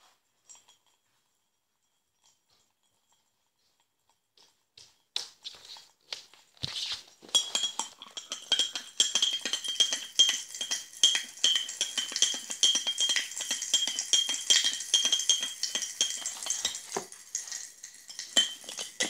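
Metal teaspoon stirring quickly in a glass mug of water, clinking rapidly against the glass with a ringing tone, starting about seven seconds in after a few faint knocks.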